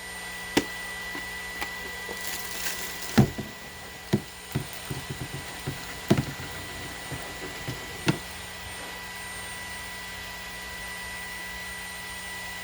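Sharp plastic clicks and knocks from handling a Shark vacuum's detachable dust bin, refitted after a seal-not-connected warning. There is a brief rustle about two and a half seconds in, the loudest knocks come about three and six seconds in, and the handling stops after about eight seconds, over a steady faint hum.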